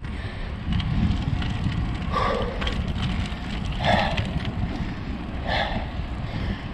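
Wind rumbling on the microphone of a camera carried by a cyclist climbing a hill. The rider's heavy breaths rise above it three times, about a second and a half apart.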